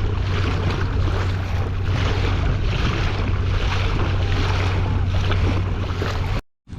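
Wind buffeting the microphone over water rushing and splashing along a kayak's hull as it is driven into a headwind, a steady rumbling wash of noise. It cuts off abruptly near the end.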